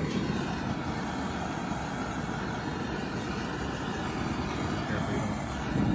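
Heat gun blowing steadily, shrinking the heat-shrink sleeve of a waterproof butt connector on a wire splice.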